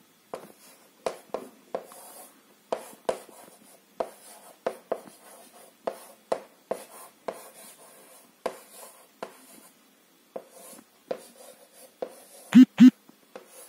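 Chalk writing on a chalkboard: an irregular run of short scratches and taps as each stroke is drawn, with two louder knocks in quick succession near the end.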